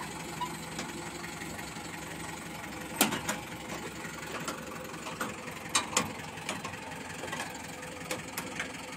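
Mahindra tractor's diesel engine running steadily, with sharp knocks now and then, the loudest about three seconds in and a pair around six seconds in.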